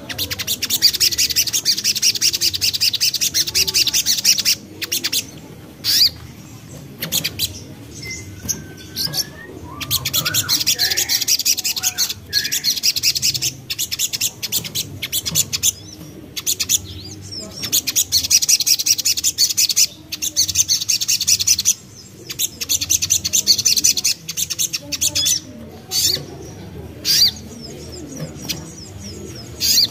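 Sogok ontong (ruby-cheeked sunbird) singing: long bouts of very rapid, high-pitched twittering lasting a few seconds each, broken by short sharp chirps, used as a lure call.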